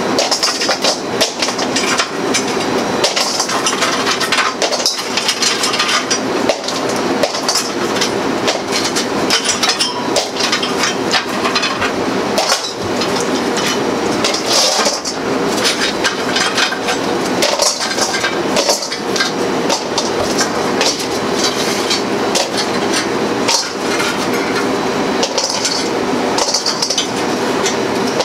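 Lava rocks clattering and clinking against a broiler's metal grates and into a steel bowl as they are scooped out by hand for cleaning. This makes a continuous run of small knocks and scrapes.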